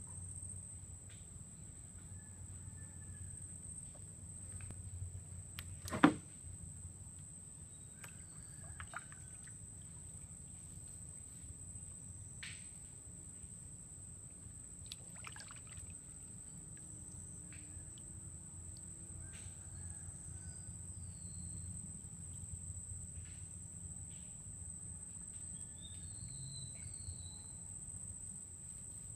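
Steady high-pitched drone of insects in mangrove forest, with scattered faint clicks and drips of a kayak being paddled. A sharp knock about six seconds in, and a few short chirps near the end.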